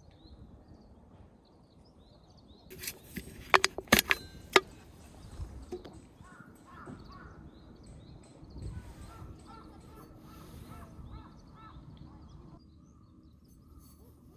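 Outdoor birds calling, with a quick run of sharp clacks or knocks about three to four and a half seconds in that is the loudest part.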